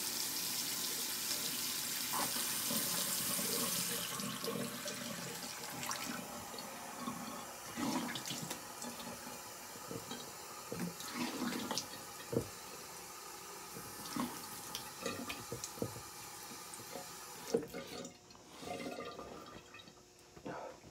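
Water running from a bathroom tap, strongest in the first few seconds, then quieter with repeated splashing as shaving lather is rinsed off the face by hand. It dies down near the end.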